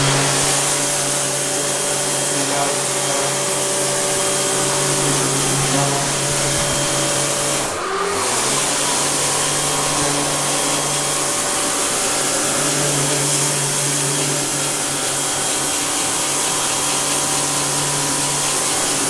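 Gerni 5000 electric pressure washer running, its motor and pump humming steadily under the hiss of the water jet blasting a concrete floor. The spray and hum break off for a moment about eight seconds in, then resume.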